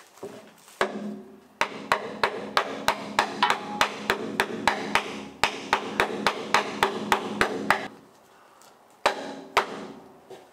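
Hammer striking a wooden block held against a cutlass bearing, driving the bearing into the boat's shaft log. A fast run of sharp knocks comes at about three a second, then after a pause of about a second a few more blows come near the end.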